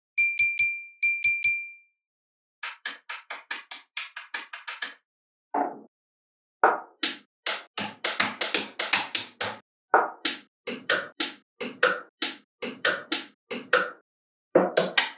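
Small magnetic balls clicking sharply into place as they are snapped together, in quick runs of about three to five clicks a second with short pauses. Four short high pings come first.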